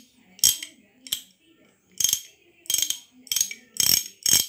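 SKS 1/2-inch drive ratchet handle being swung back and forth, its pawl clicking in about seven short bursts of quick clicks, roughly one burst every two-thirds of a second.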